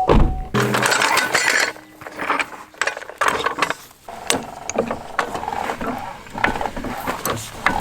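Hand tools working on a car wheel: irregular ratcheting clicks and metal clanks, as from a jack or wrench being worked during a tire change.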